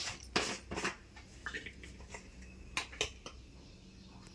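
Gas stove burner heating an aluminium pot of water, a low steady rumble, with a few scattered sharp clicks and taps, three of them close together about three seconds in.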